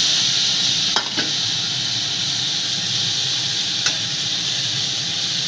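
Chopped vegetables sizzling steadily in hot oil and fried spice paste in a kadai, with a steel spatula clicking and scraping against the pan a few times, about a second in and again near four seconds.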